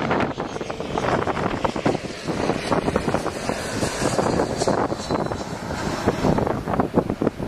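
Small business jet passing low overhead on final approach to land, its engines heard as a steady jet rush, mixed with gusty wind buffeting the microphone.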